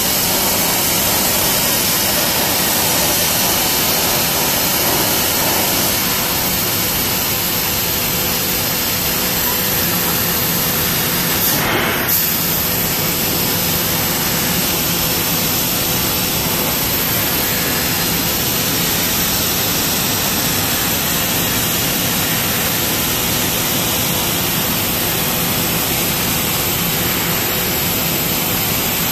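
Trumpf laser cutting machine at work cutting sheet metal: a steady loud hiss with a faint hum under it, and one short sharp sound about twelve seconds in.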